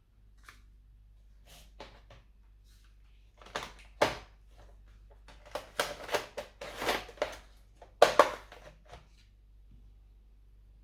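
Irregular clicks and knocks from a laptop being handled, loudest about four and eight seconds in, over a steady low hum.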